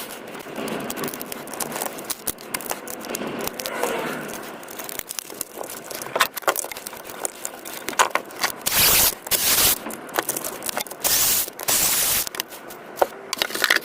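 Makita battery pack and its parts being handled and worked on: a dense run of irregular clicks, crackles and scrapes, with two loud rushing noises lasting about a second each past the middle.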